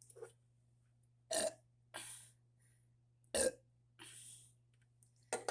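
A woman burping twice, two short loud burps about two seconds apart, each followed by a softer breathy hiss.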